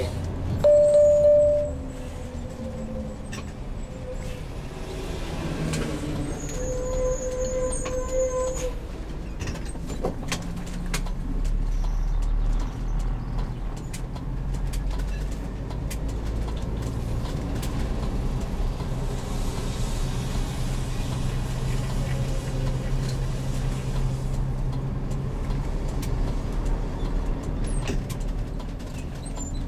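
A heavy motorhome driving, heard from inside the cab: a steady low engine drone and road noise, with scattered knocks and rattles. A short loud tone sounds about a second in.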